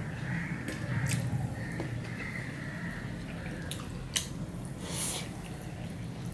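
Eating rice and snake gourd fry by hand: fingers mixing the food on a steel plate, and chewing with scattered sharp mouth clicks, the sharpest about four seconds in.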